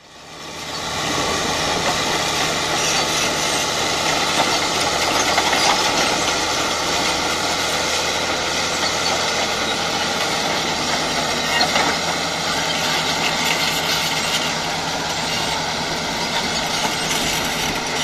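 Cat D6T crawler bulldozer's diesel engine running steadily under load as it pushes broken rock with its blade, with track and rock noise mixed in. The sound fades in over the first second.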